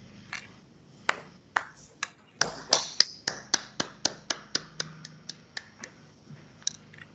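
Hand clapping from one or two people, heard through a video-call audio line: sharp claps about three to four a second, starting about a second in and thinning out near the end.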